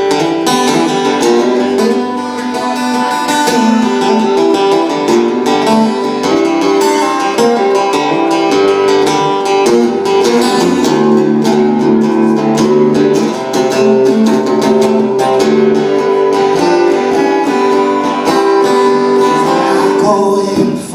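Acoustic guitar playing an instrumental break in a blues song, with busy picked and strummed notes at an even pace.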